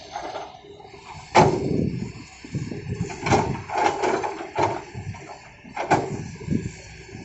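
Excavator at work: a series of heavy knocks and thuds, about seven in six seconds, the loudest about a second and a half in.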